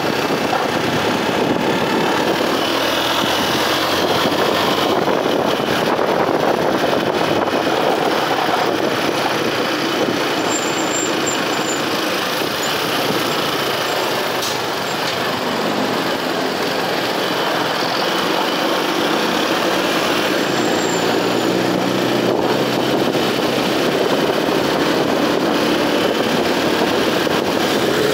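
Motorcycle riding noise: a steady rush of wind and road noise over the Honda CG 125's single-cylinder engine running at cruising speed.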